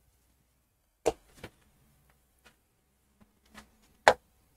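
A few short, sharp taps of a pen on an interactive display screen, the loudest about a second in and again about four seconds in, with fainter taps between.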